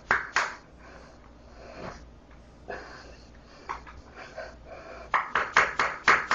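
Hammer tapping a chisel to chip an old glued PVC toilet flange away from the pipe: two sharp strikes at the start, a few scattered ones, then a quick run of taps, about six a second, near the end.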